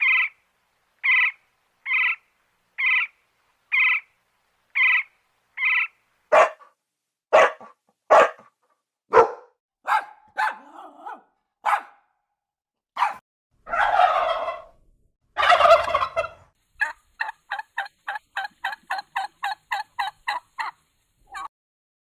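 A series of animal calls. First come short, even calls repeated about once a second. Then come sharper, harsher single calls and two longer, rougher calls. Near the end there is a rapid run of about three short calls a second.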